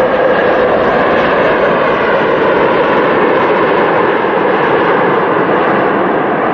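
Jet engines of an Air Transat Airbus A330 twin-engine airliner making a steady, loud roar as it rolls down the runway on its landing rollout. A faint whine fades out within the first second.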